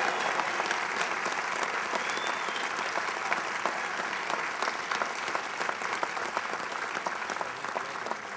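Crowd applause, many people clapping at once, slowly dying down toward the end.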